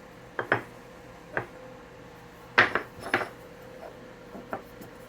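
Arkansas oilstones (hard novaculite) clinking and knocking against each other and a hard surface as they are handled, in a string of short, sharp hits with the loudest about two and a half seconds in.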